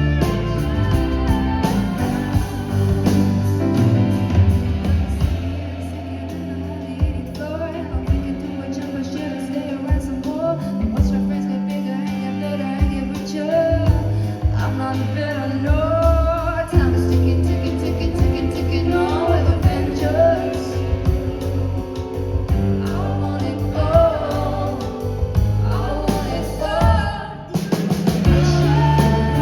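Live pop song: a woman singing lead with wavering held notes over a band's backing. The music drops out briefly near the end.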